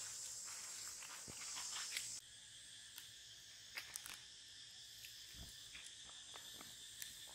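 Steady high-pitched chorus of forest insects with scattered small clicks and rustles. About two seconds in it switches abruptly to a thinner, steadier insect trill.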